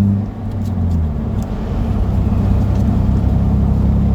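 A car driving, heard from inside the cabin: a steady engine hum fades out about a second in and gives way to a low, even rumble of tyres on the road.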